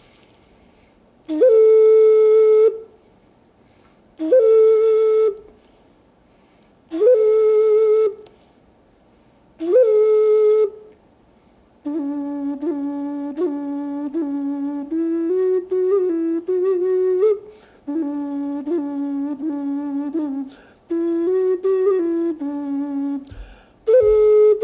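Buffalo horn ocarina played solo: four long held notes, each scooping up into pitch, with pauses between them, then about halfway through a slow melody of shorter notes stepping between two lower pitches.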